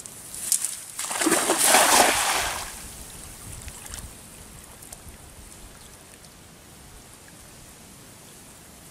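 A cast net thrown and landing on the water: a rushing splash as the spread net and its weighted rim hit the surface, about a second in and lasting a second or so, then a low steady background.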